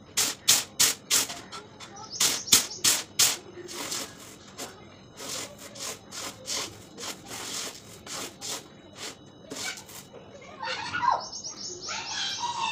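Uncooked rice being tossed and sifted in a plastic basin to clean it, a rhythmic rattling swish of grains about three strokes a second. The strokes are loudest in the first few seconds and fainter after that.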